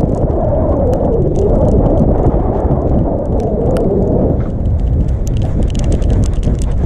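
Heavy wind and handling rumble on a GoPro strapped to a dog's back as the dog rolls on the sand and runs, with many scattered clicks and a wavering mid-pitched tone for the first few seconds.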